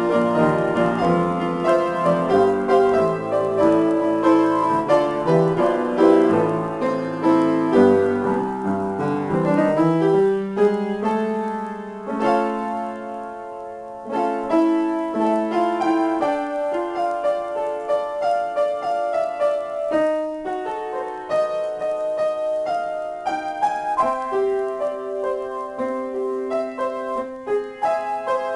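Solo piano improvisation. Dense chords over bass notes for the first ten seconds or so give way to a held chord left to fade, then lighter playing in the middle register without the low bass.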